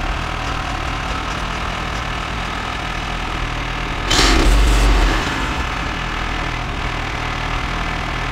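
Small gas engine of a Woodland Mills HM126 band sawmill running steadily at idle, with a loud rush of noise lasting about a second, starting about four seconds in.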